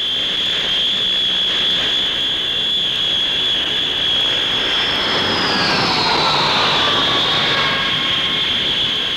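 Twin Rolls-Royce Dart turboprops of a Handley Page Herald in flight: a steady high whine over engine noise, with a second whine falling in pitch about five to seven seconds in.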